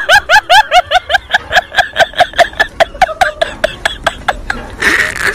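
High-pitched laughter: a rapid run of 'ha' pulses, about five a second, that slows and fades over about four seconds, followed by a short breathy burst near the end.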